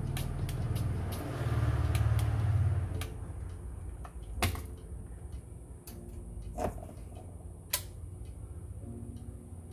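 Handheld demagnetizing coil buzzing with a deep mains hum as it is worked over the cassette deck's tape heads; the hum swells about a second in and cuts off about three seconds in. It is followed by three sharp clicks, the loudest near the end.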